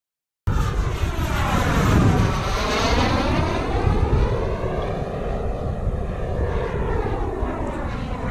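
SWIWIN 190N model jet turbine of a large RC sport jet running in flight, its roaring hiss sweeping in tone as the aircraft passes by. It cuts in suddenly about half a second in, with wind rumbling on the microphone underneath.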